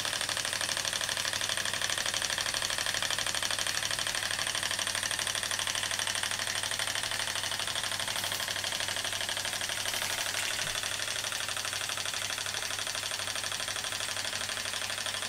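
Märklin toy donkey steam engine running steadily under steam, its cylinder beating in a fast, even rhythm. The piston is packed with graphited yarn.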